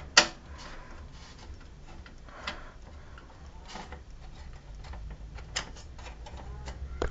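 Scattered sharp clicks and knocks of a screwdriver and metal parts being handled while a CD writer is unscrewed from a PC case, the loudest one just after the start, over a low steady hum.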